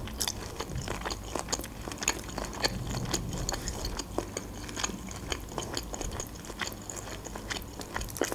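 A person chewing a mouthful of peeled shrimp with the mouth closed: many soft, irregular wet mouth clicks and smacks, with a sharper click near the end.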